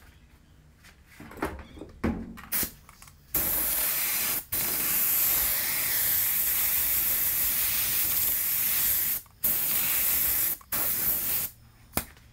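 Spray gun spraying contact adhesive onto the door panel board. It hisses in one long burst of about six seconds, then two short bursts. A few knocks come from handling the gun before the spraying starts.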